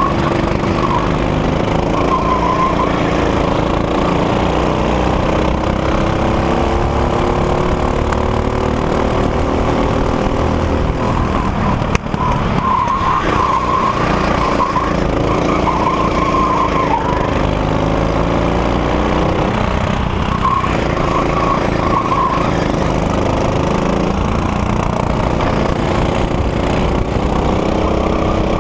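Go-kart engine heard from the driver's seat, running hard, its pitch rising and falling as the kart accelerates and slows for corners. The tyres squeal now and then through the turns, and there is one short knock about twelve seconds in.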